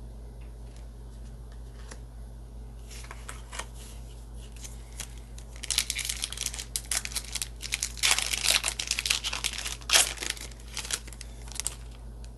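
Trading-card booster pack wrapper being crinkled and torn open. A few faint ticks come first, then a dense run of crackling and tearing about three seconds in, loudest over the last half.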